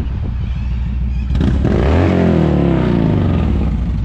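A steady engine idle underneath, then a motorcycle passes close by about a second and a half in, its engine note loud and falling in pitch as it goes past.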